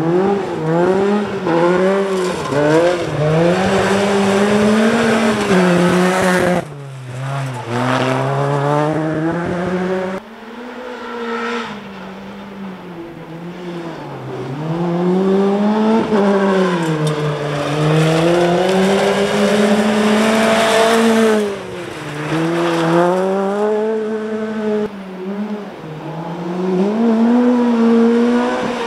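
Ford Fiesta rally cars driven hard on a gravel stage, one after another. Each engine revs up through the gears, the pitch climbing and falling again and again with each gear change and lift off the throttle.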